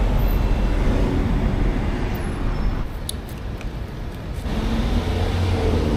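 Steady road-traffic noise from passing cars, with an engine's hum coming in near the end.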